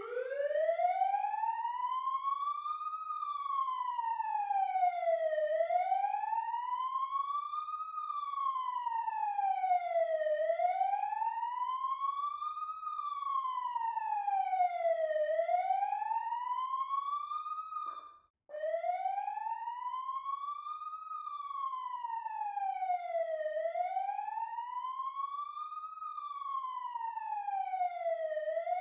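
Emergency vehicle siren sounding in wail mode: one tone slowly rising and falling, each sweep up and back taking about five seconds. It breaks off for a moment a little past halfway, then starts again.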